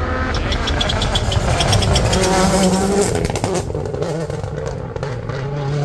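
Rally car engine revving up and falling back several times, with a rapid run of sharp cracks in the first second and a half.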